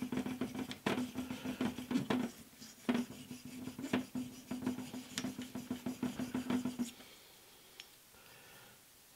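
A hard Arkansas sharpening stone rubbed in quick short strokes along the edges of a steel collet-closer part, stoning off burrs. It makes a dry scraping with a steady low tone under it, and it stops about seven seconds in.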